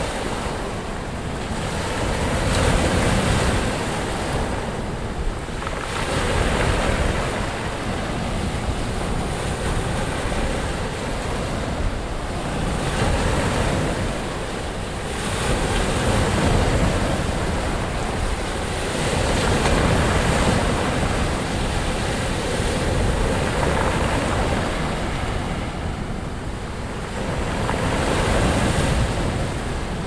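Rough Mediterranean surf breaking on the shore, a continuous rushing wash that swells and eases every few seconds as each wave comes in.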